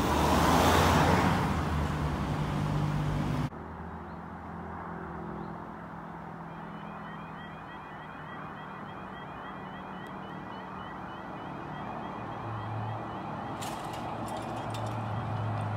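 A car drives over the level crossing, loudest about a second in. After a cut, the crossing's warning alarm starts about six seconds in, a repeating warbling tone sounding with the amber and then red road lights: it warns that a train is coming and the barriers are about to lower.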